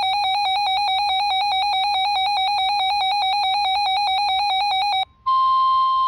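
Weather radio receiver's electronic alert sounding as a loud, fast-warbling beep. About five seconds in it cuts out, and the steady 1050 Hz NOAA Weather Radio warning alarm tone starts, signalling a new warning about to be broadcast.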